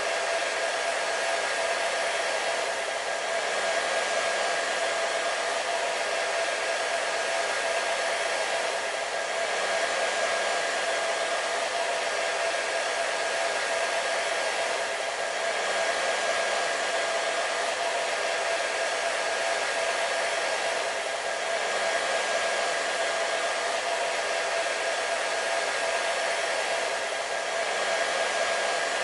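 Hair dryer running steadily: a constant blowing hiss with a steady motor whine, swelling slightly about every six seconds.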